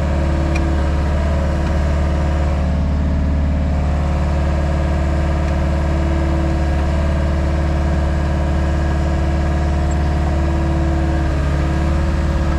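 Diesel engine of a JCB Pothole Pro wheeled excavator running steadily at constant speed.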